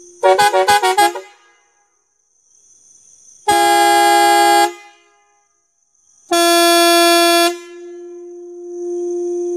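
Hexatone musical horn on a modified three-wheeler: first a quick run of stepped notes, then two held blasts of about a second each with several tones sounding together. After the second blast a single lower tone stays sounding more quietly.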